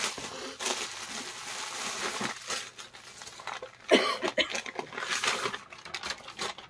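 Clear plastic packaging crinkling and cloth rustling as a packed suit is handled and unfolded, with a short, sharp, louder noise about four seconds in.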